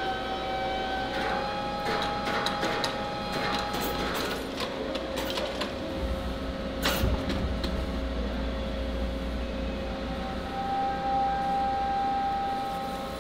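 Machine-shop noise: several steady whining machine tones with scattered metal clicks and knocks as a heavy steel blank on a crane sling is fitted into a lathe chuck. A low rumble sets in about six seconds in, and a single sharp metal clank comes about a second later.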